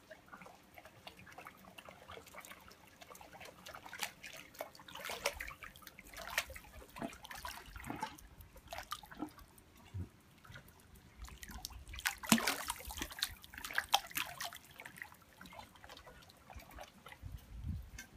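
Hot-spring water in an outdoor footbath sloshing and trickling as feet move in it, with irregular small splashes. It is busiest about four to six seconds in and again around twelve to fourteen seconds in.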